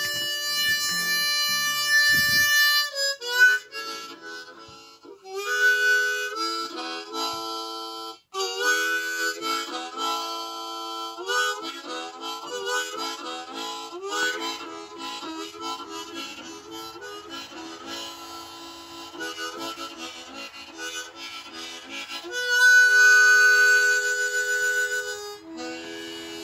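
Harmonica being played: a melody of reedy held notes and chords, opening with one long held note, with a louder stretch near the end.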